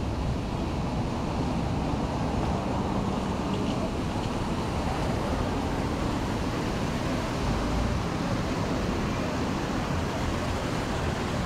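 Steady outdoor background noise, heaviest in a low rumble, with no single event standing out.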